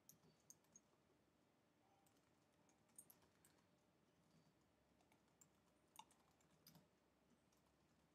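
Faint, sparse keystrokes on a computer keyboard: scattered single clicks and short pairs over near silence.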